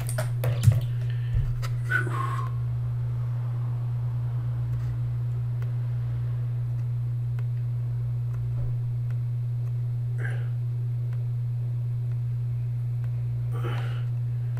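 Steady low hum in the recording, with a sharp click about half a second in and a couple of faint short noises later on.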